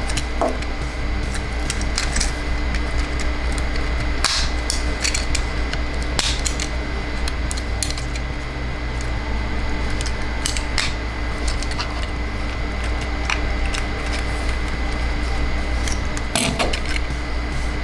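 Plastic parts of a transforming toy clicking and snapping at irregular moments as it is handled and reshaped, over a steady hum.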